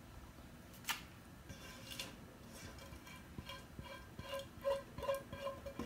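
Kitchen utensil clinking against a metal pot while chicken pieces are scraped out onto a foil-lined tray: a sharp click about a second in, then a run of light, ringing clinks near the end.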